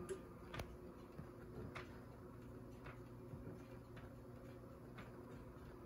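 Pioneer RT-1020L reel-to-reel tape deck playing back a blank stretch of tape. A very faint steady hum runs under soft, irregular ticks, about one every half second to a second.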